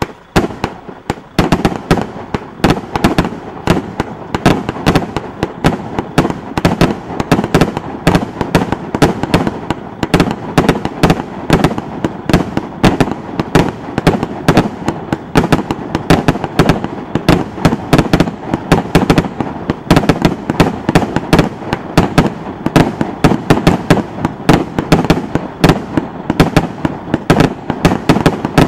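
Jorge BS-120 firework cake, a 120-shot battery, firing shot after shot in rapid succession, about four shots a second, with the pops of the stars breaking overhead.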